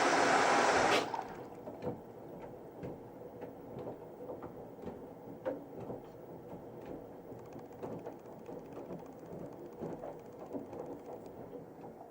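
Panasonic NA-168VX4 drum washing machine during its soak stage: a loud rushing noise, likely water pouring into the drum, stops abruptly about a second in. Then the machine runs quietly, with a faint hum and irregular light clicks and soft knocks as the drum turns the load.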